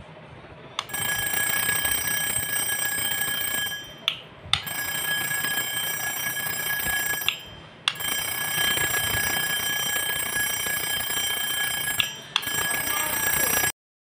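Homemade electric doorbell with a steel katori bowl as its gong, ringing continuously like an alarm-clock bell. It rings in four long bursts as the push switch is pressed and released, with a click at the start of most bursts.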